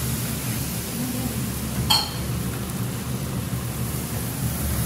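Masala frying in oil in a kadhai, a steady sizzle over a low hum. A single metallic clink about two seconds in.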